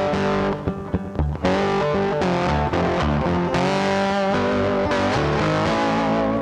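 Background music: distorted electric guitar playing held chords over bass, with a short break about a second in.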